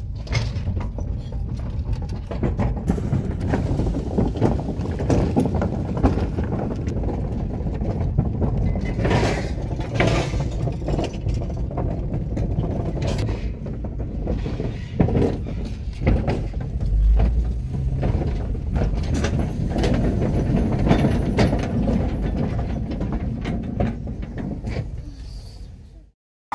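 Car tyres rolling over the wooden plank deck and metal joints of a pontoon bridge, heard from inside the car: steady road noise with frequent irregular knocks and clatters. It fades out near the end.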